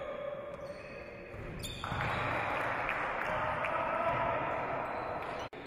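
Live basketball game sound: a ball bouncing on a wooden court amid general court noise, which grows louder from about two seconds in. The sound drops out for an instant near the end.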